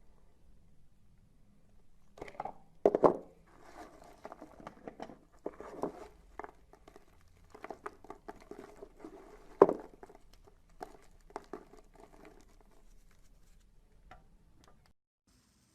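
Irregular crackling and crunching of a material being worked by hand, with two louder crunches, one about three seconds in and one near ten seconds; it stops a second before the end.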